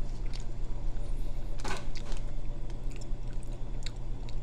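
A person quietly chewing a soft, gum-like candy stick, with faint mouth clicks and one brief rustle a little under two seconds in. A steady low electrical hum runs underneath.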